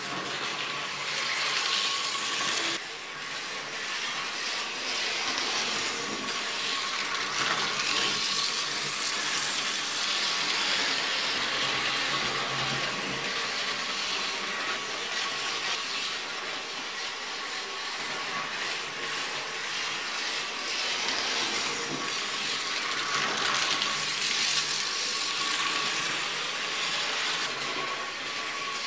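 Märklin HO scale model locomotive running on metal track: a steady motor whine with the rolling rattle of its wheels, swelling and easing as it comes near and moves away. Its motor runs on freshly replaced brushes.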